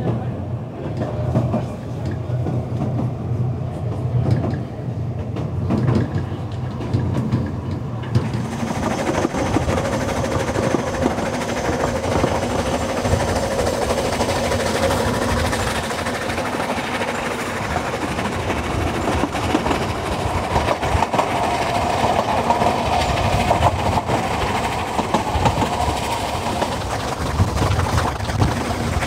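Narrow-gauge steam train running, heard from an open carriage window: the rumble and clatter of the carriage wheels on the rails with the locomotive working ahead. About eight seconds in, a louder, brighter hissing rush joins the running noise.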